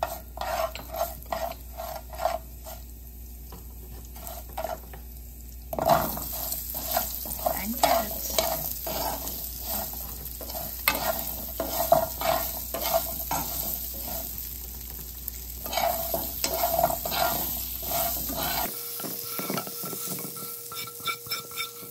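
A metal spoon stirring and scraping in a nonstick frying pan, about two or three strokes a second: first through nigella seeds in hot oil, then through carrot sticks sautéing with a sizzle that starts about six seconds in. Near the end the sizzle stops and a spatula scrapes the carrots out of the pan.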